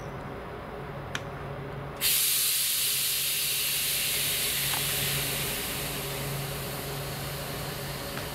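Air brakes on a slowly rolling passenger train hissing as it comes in to stop: a loud, high, steady rush of escaping air starts suddenly about two seconds in and eases off near the end, over a low steady hum from the train.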